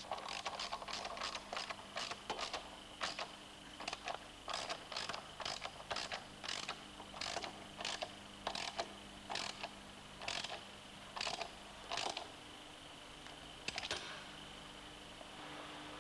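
Irregular metallic clicks and knocks, about one or two a second, as the sill clamps and supports of a car-body straightening bench are tightened; they stop near the end. A faint steady hum with a thin high tone runs underneath.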